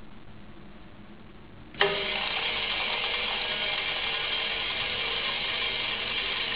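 Dosing machine (AJFJ DOS 15 filler) starting with a sudden clack about two seconds in, then running with a steady, dense rattling hiss.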